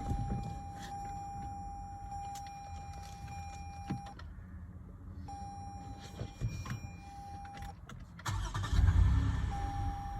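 2015 Toyota Highlander being started and run just after its battery was replaced: a low engine rumble with a louder surge about eight seconds in. Over it runs a steady electronic tone that breaks off twice.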